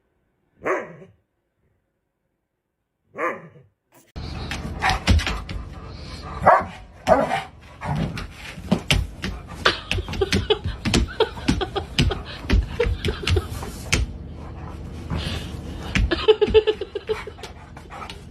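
A dog barking: two single sharp barks a few seconds apart. Then a busier stretch of many short knocks and scuffles, with more dog barks and yelps among them.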